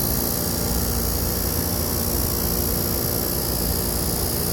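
Machinery running steadily: a low hum with a few steady tones under a strong high hiss, unchanging throughout.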